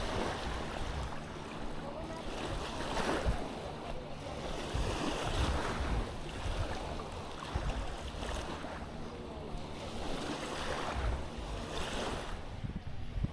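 Small waves washing onto a sandy beach, swelling and falling every few seconds, with wind rumbling on the microphone.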